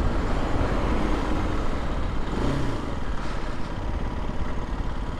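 Aprilia RS 125 motorcycle under way: its single-cylinder four-stroke engine running steadily beneath a heavy, fluttering wind rumble on the microphone.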